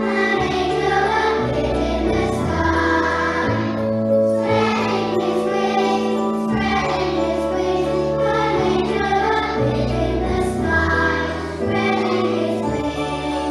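A group of young children singing a nativity song together over a keyboard backing track.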